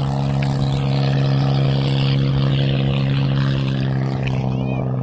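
A steady, even-pitched motor hum that holds one pitch throughout, with wind rushing over the microphone of a moving bicycle.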